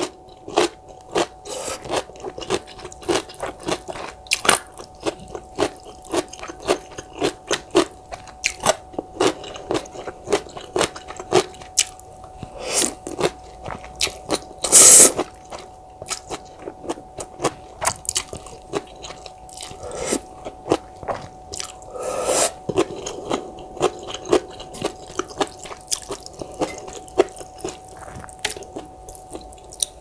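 Close-up eating sounds of thick Nongshim Neoguri instant ramen noodles: rapid wet chewing and mouth smacks, broken by a few longer slurps of noodles, the loudest about halfway through. A faint steady hum runs underneath.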